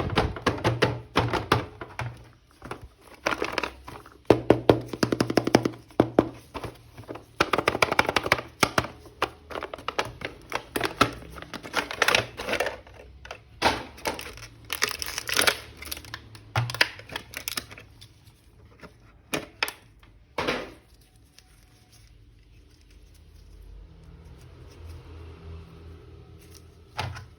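Plastic packaging crinkling and tearing, with rapid clicks and knocks as a plastic action figure is unwrapped and handled. The busy handling stops after about eighteen seconds, followed by a few separate knocks and then only a faint low hum.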